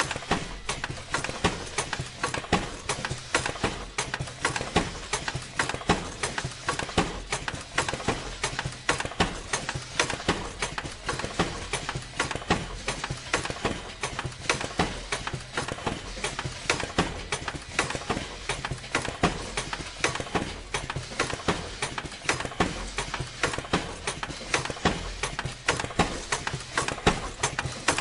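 Pinning machine running: a rapid, irregular clatter of clicks over a steady low hum.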